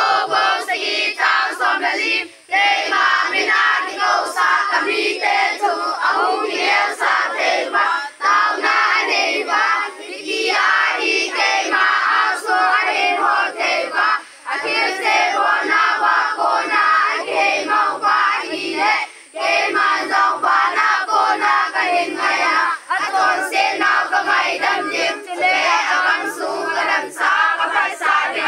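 Many children's and young people's voices praying aloud all at once, a loud overlapping babble of prayer that drops off briefly a few times.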